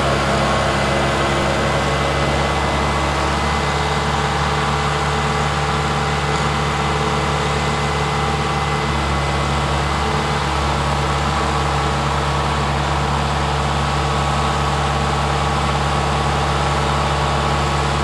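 An engine running at a steady speed, a constant low hum with several fixed tones that neither rises nor falls.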